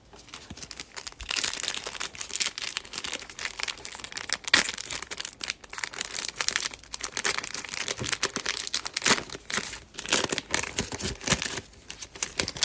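Foil trading-card pack wrapper being torn open and crinkled by hand, a long run of rustling and crackling with sharp tearing crackles.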